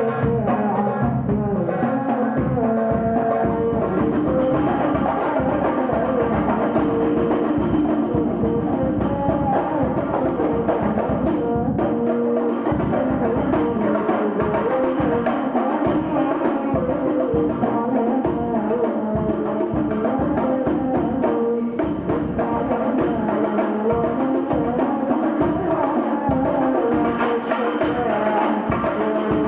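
Hadroh ensemble of rebana frame drums and tambourine playing a fast, steady interlocking beat, with a wavering melody over the drums throughout.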